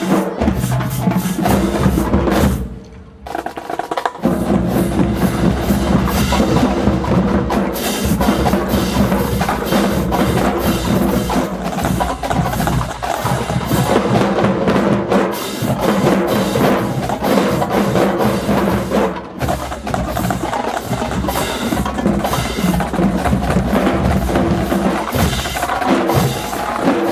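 Marching band drumline of snare, tenor and bass drums playing a loud, fast cadence, with a brief cutoff about three seconds in before the drumming resumes.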